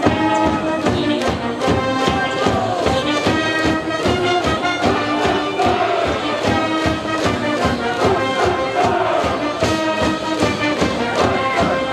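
High school brass band playing a baseball cheer tune with a steady drum beat, while the student cheering section chants and shouts along.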